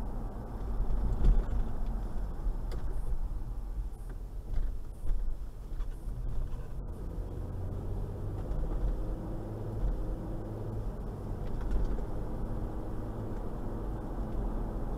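Toyota Land Cruiser 120 driving at low city speed: a steady low rumble of engine and tyres on the road. A few brief louder knocks come in the first five seconds.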